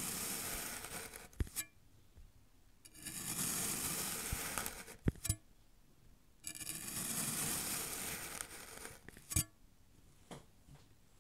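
A knife slicing slowly down through a block of kinetic sand, a gritty crunching hiss. There are three cuts, the first already under way, each lasting two to three seconds and ending in a sharp click as the blade reaches the surface below; a few light ticks follow near the end.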